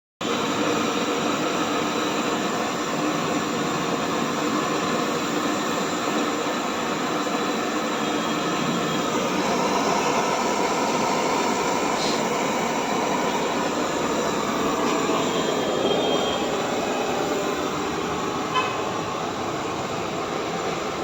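Steady rushing road and engine noise of a moving vehicle, with a couple of faint clicks.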